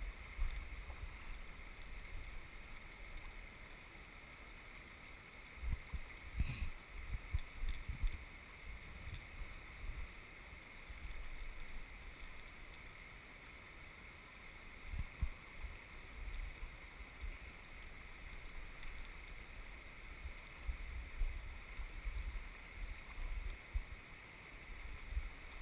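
Shallow river riffle running steadily over gravel, with scattered low rumbles on the microphone.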